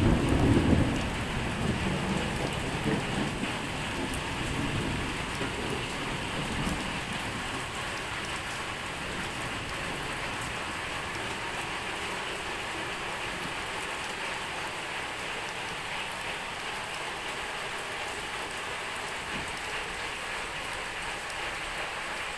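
Steady rain falling on surfaces, with a low thunder rumble dying away over the first few seconds.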